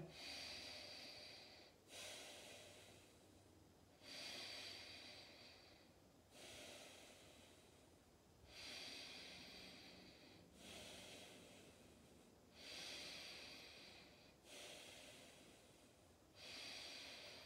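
A person breathing slowly and evenly in and out, faint, with a new breath sound about every two seconds, a long held series of yoga breaths.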